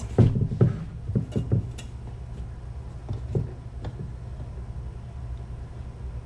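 A handful of short knocks and bumps, mostly in the first two seconds and a couple more about three to four seconds in, as the ATV's intake manifold with its thick cork gasket is worked into a snug fit. A steady low hum lies underneath.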